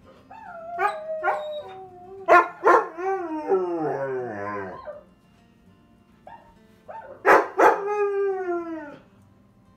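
Recorded dog howls played through a TV's speakers. First come a few short yelping calls, then a long wavering howl that falls in pitch. After a pause of about two seconds, a second howl glides downward.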